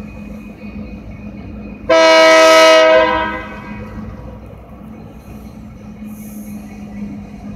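Diesel locomotive air horn sounding one loud blast of about a second, a multi-tone chord, as a freight train led by GP38 locomotives approaches a grade crossing. A steady low diesel engine drone runs underneath.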